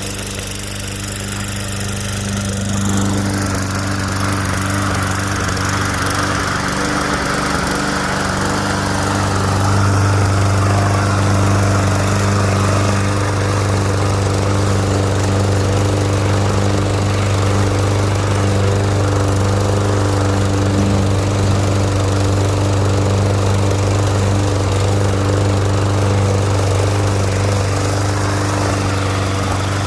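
Petrol walk-behind lawn mower engine running steadily, growing a little louder a few seconds in.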